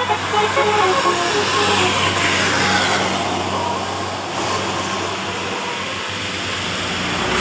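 Multi-tone telolet bus horn playing a short stepped melody that stops about a second in. Then an engine keeps running under traffic noise that swells and fades.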